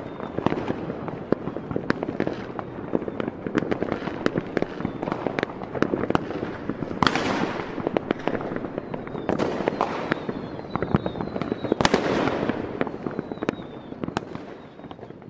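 Fireworks going off: a dense run of bangs and crackles, with two bigger bursts about seven and twelve seconds in, fading away near the end.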